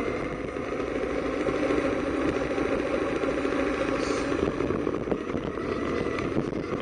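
Small autonomous RC rover driving, heard from its own onboard camera: a steady drivetrain hum with tyre and chassis rattle as it runs over pavement and dirt.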